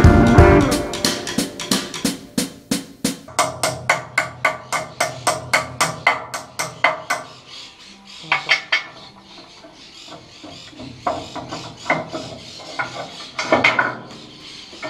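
Guitar music ends in the first second, then a hammer strikes metal: a quick run of ringing blows at about four a second, followed by slower, scattered knocks.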